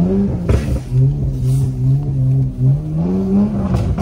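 Car engine revving: its pitch holds steady, climbs a little over halfway through, then drops again near the end.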